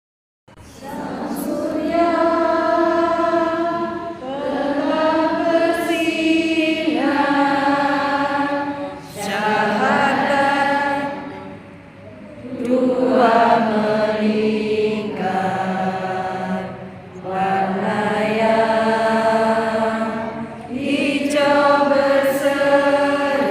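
A group of voices chanting a recitation together in unison, in drawn-out phrases of two to four seconds with short breaths between.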